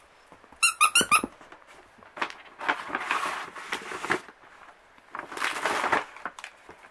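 A squeaky plush toy squeezed in a quick run of about five high squeaks about a second in, followed by scuffling and rustling as a puppy tussles with toys on a plastic chair mat.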